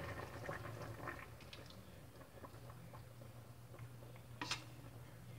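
Faint soft bubbling and patter of chicken afritada simmering in a sauté pan as tomato sauce is poured in. A low steady hum sets in about halfway through, and a single sharp click comes about four and a half seconds in.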